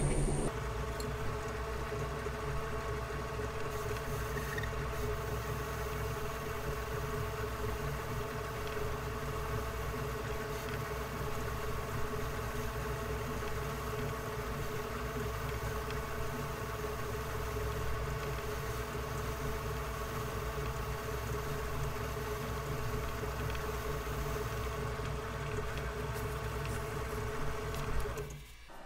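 Well-worn metal lathe running steadily under power feed while a high-speed steel tool takes a light cut. Its motor and gearing give a steady hum with a few steady tones. The sound stops shortly before the end as the lathe is shut off.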